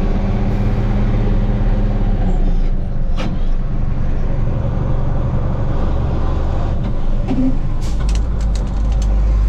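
Vehicle engine running steadily, its pitch shifting a few times, with a few sharp clicks in between.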